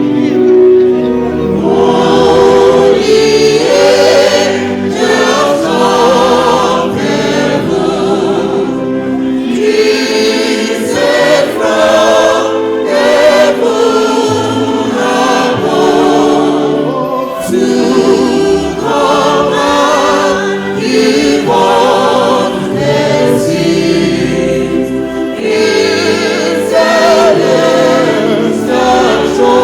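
Church choir singing a hymn in phrases a few seconds long, over sustained chords from an instrumental accompaniment.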